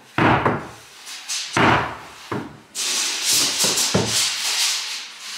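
Steel pry bar working at wooden floorboards to lift them: a few sharp knocks and scrapes, then from about halfway a continuous harsh scraping of metal and wood with a few knocks in it.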